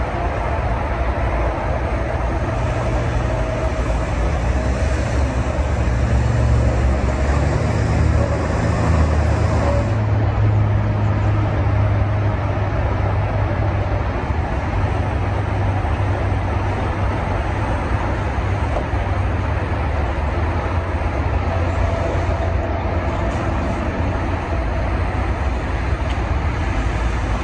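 Jeep Wrangler JL engine running at low revs as it crawls slowly over a muddy off-road trail, a steady low drone. A high hiss over it stops abruptly about ten seconds in.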